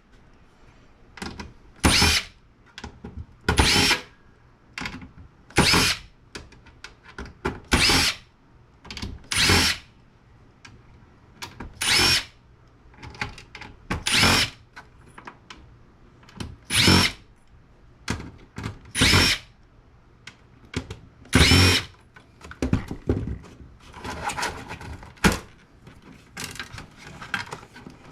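Power drill-driver run in short bursts about every two seconds, backing screws out of a network switch, with small clicks between bursts.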